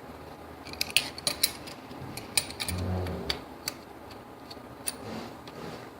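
Metal clicks and clinks of a crescent wrench being fitted onto a triax connector's metal cable-clamp nut and tightened, a dozen or so irregular sharp clicks, with a brief low hum near the middle.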